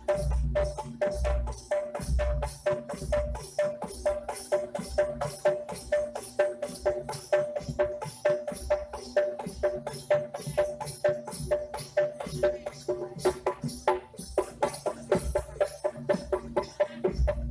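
Jaranan gamelan accompaniment: bronze kettle gongs struck in a fast, even pulse of about three beats a second, each ringing on the same pitch, over drumming with deep booming strokes at the start, in the middle and again near the end.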